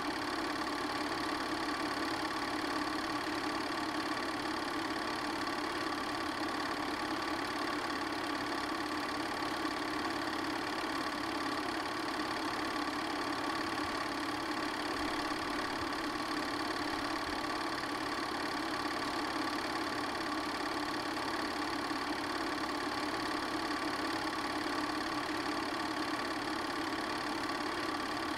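Film projector running: a steady mechanical whir with a constant hum and hiss that never changes.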